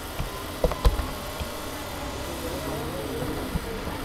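A few computer keyboard key clicks, the loudest just under a second in, over a steady low background rumble.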